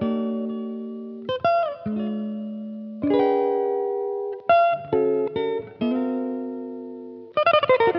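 Background music on guitar: chords struck and left to ring out, a new one every second or so, with quicker picked notes near the end.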